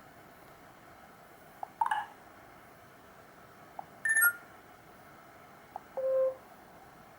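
Black Fox B5 phone speaker playing three short, different tone previews, each a fraction of a second long and about two seconds apart. Each is preceded by a faint click: the phone stepping through its stock ringtone and notification sounds.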